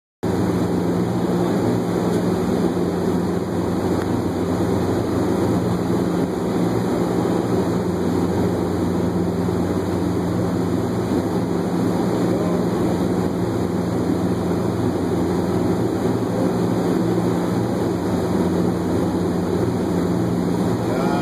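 Steady drone of heavy machinery: a constant low hum under a dense rushing noise.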